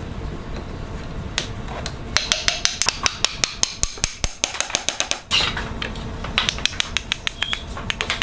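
A fast series of light hammer taps, about five or six a second. They come in two runs, with a louder scraping burst between them about five seconds in.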